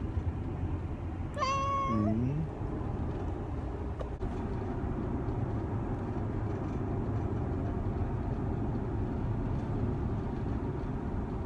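A cat meows once about a second and a half in: a drawn-out call that drops to a low note at the end. A steady low road rumble from inside a moving car runs under it.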